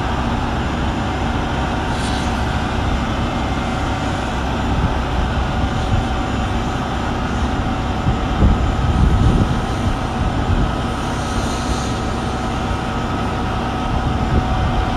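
A fire engine's diesel engine runs steadily while it pumps water to a charged hose line, a constant drone with a steady hum. A brief hiss comes about two seconds in and another around eleven seconds.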